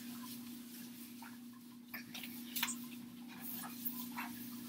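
Whiteboard eraser wiping across a whiteboard in short, faint strokes, over a steady low hum.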